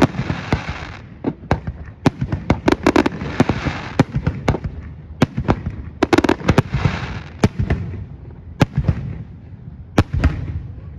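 Fireworks display: a rapid, irregular series of sharp bangs from bursting aerial shells, with stretches of crackling hiss about a second long near the start, a few seconds in and about two-thirds of the way through.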